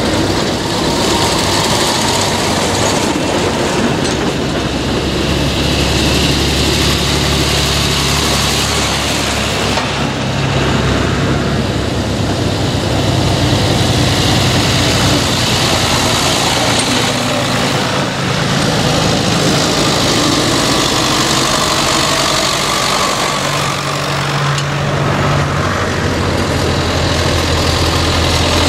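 Diesel engines of farm tractors driving past one after another: a Mercedes-Benz MB-trac, then a John Deere, then a blue Ford. The low engine hum runs continuously and changes pitch as each machine comes by.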